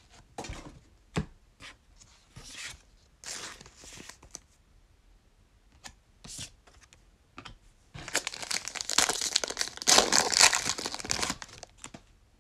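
A foil trading-card pack wrapper being torn open and crinkled, a loud ripping, rustling stretch of about three seconds near the end. Before it, scattered light clicks and rustles of cards and wrappers being handled.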